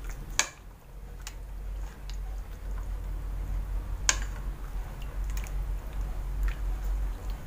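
Hands mixing marinade into raw pork spare ribs in a metal basin, with scattered light clicks and taps, the sharpest about four seconds in, over a low steady hum.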